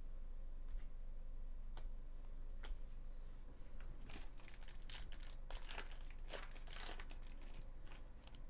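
Foil wrapper of a Bowman Chrome baseball card pack crinkling and tearing as the pack is ripped open by hand. A dense run of crackles comes from about halfway in to near the end, after a few faint ticks.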